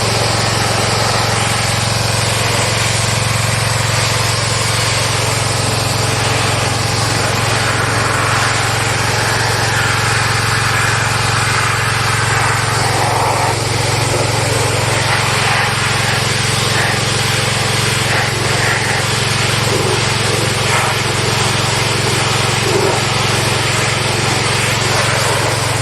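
Small gasoline engine of a pressure washer running steadily, with the hiss of the water spray over it. The engine runs on a carburetor that was given only a quick cleaning.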